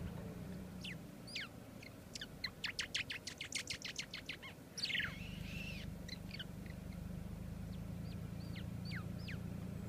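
Small bird calling: a few quick falling chirps, then a fast rattle of about seven notes a second, a harsher call and a string of short falling whistles near the end. A low steady hum lies underneath.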